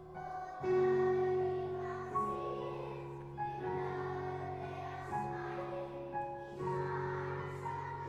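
A children's choir singing a slow song with piano accompaniment, each note held for a second or more.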